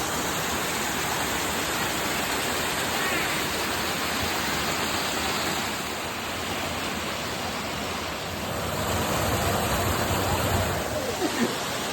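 Waterfall rushing in a steady, dense wash of water noise, which grows louder and deeper for a couple of seconds about nine seconds in.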